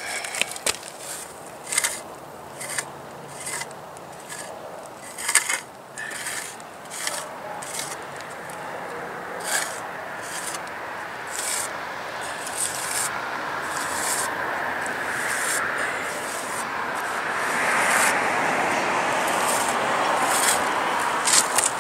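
Steel putty knife scraping wet hydraulic cement: short sharp scrapes at first, then a steady rasping as the cement is smoothed across a concrete chimney cap, growing louder over the last few seconds.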